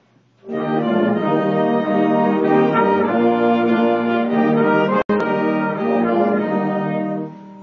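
A school band, brass to the fore, starts playing a hymn arrangement about half a second in, in full sustained chords. The sound cuts out for an instant about five seconds in and dips briefly near the end.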